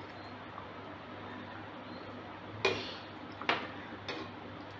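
A metal spoon stirring sambar in a pan, knocking sharply against the pan's side a few times in the second half, about one clink a second.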